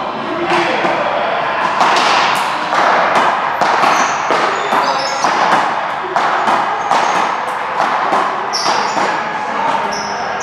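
A quick, irregular run of sharp ball hits and bounces echoing in a large indoor hall, with a few short high squeaks.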